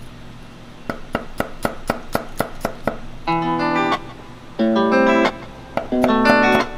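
Chinese cleaver slicing garlic cloves on a wooden chopping block: a quick, even run of knocks, about four or five a second, for roughly two seconds. Guitar music then comes in and is the loudest sound.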